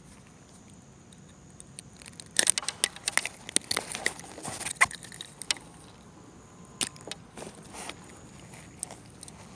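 Irregular sharp clicks and knocks: a dense flurry of them for about two and a half seconds starting a couple of seconds in, then a few scattered ones.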